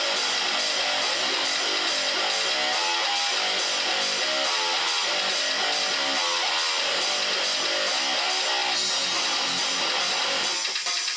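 Homemade three-string electric cigar box guitar with a humbucker pickup, tuned F#-B-E and played amplified in djent-style metal riffing.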